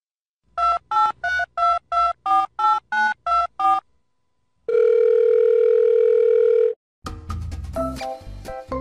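Telephone keypad touch-tones: eleven short two-note beeps at about three a second, like a phone number being dialled, then one steady tone held about two seconds. Music with a beat starts about seven seconds in.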